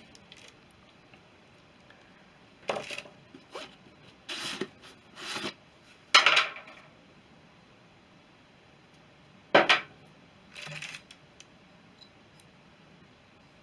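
Small metal parts and tools handled on a workbench: a series of scattered clinks, knocks and short scrapes, the loudest about six and nine and a half seconds in.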